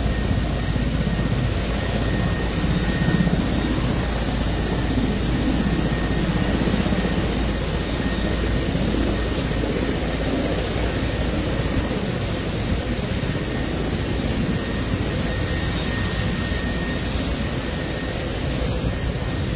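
Military helicopter running on the ground with its rotor turning, a steady engine and rotor noise.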